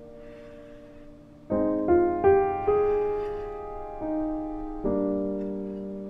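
Slow, gentle solo piano music: a soft chord fades away, then about a second and a half in a new chord is struck, followed by a few single notes and more chords, each left to ring out.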